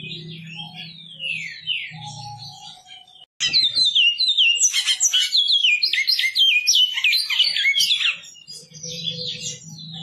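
Bicudo (great-billed seed finch) singing: quieter chirping at first, then a loud, fast run of up-and-down whistled notes from about three and a half to eight seconds in, dropping back to quieter chirping near the end.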